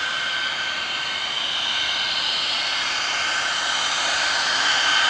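Saab AJS-37 Viggen's Volvo RM8A afterburning turbofan running at taxi power: a steady high-pitched whine over a rushing hiss, growing a little louder near the end.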